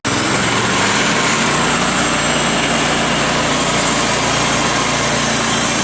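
Sawmill's gas engine running steadily at high throttle while the blade cuts a bark slab off a pine log, squaring it into a cant.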